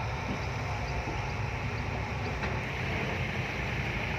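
Heavy diesel engine running steadily, a low, even rumble.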